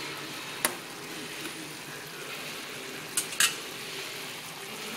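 Pot of pinakbet vegetables sizzling steadily on the stove, with a metal spoon clinking against the stainless pot once about half a second in and twice in quick succession near three seconds.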